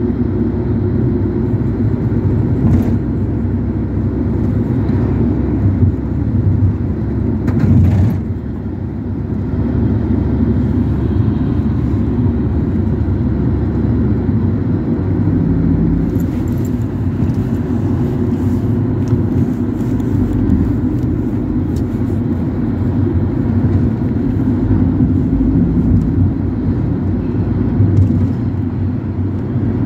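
Steady engine and road noise heard inside a Ford Transit minibus on the move, with a couple of brief knocks about three and eight seconds in.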